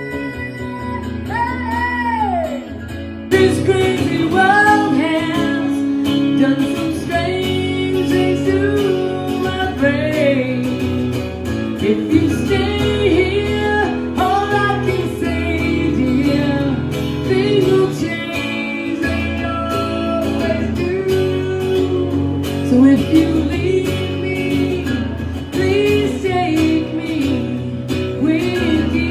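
Stripped-down acoustic country music: acoustic guitar accompaniment with a bending melodic line on top, fuller and louder from about three seconds in.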